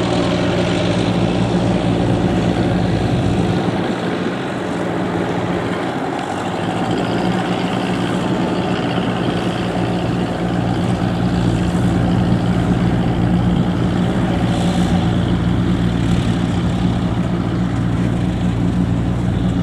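Kubota DC70 combine harvester running steadily at working speed: a constant diesel engine hum under the dense clatter of the cutting and threshing machinery, easing off slightly for a few seconds about four seconds in.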